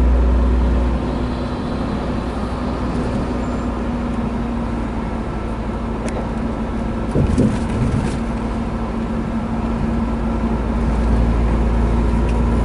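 Engine drone and road noise inside a truck cab while driving on a highway, with a steady hum. There is a short louder sound about seven seconds in.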